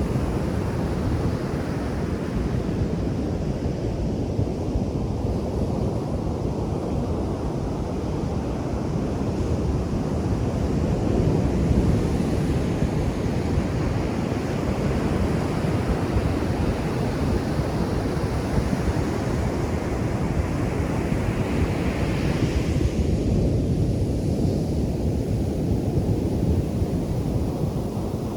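Ocean surf breaking on a beach: a continuous low rushing wash that swells brighter and hissier as waves break, about twelve seconds in and again a little past twenty seconds.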